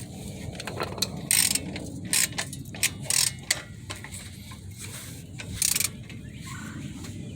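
Ratchet wrench clicking in short, uneven bursts as the bolts of a newly fitted front wheel hub assembly are tightened; the bursts stop about six seconds in.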